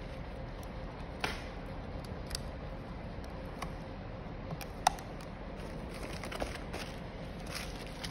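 Handling noise as a phone screen assembly is unwrapped from bubble wrap and a plastic sleeve: light crinkling of the packaging with a few sharp clicks and taps, the clearest about a second in, two seconds in and near the middle.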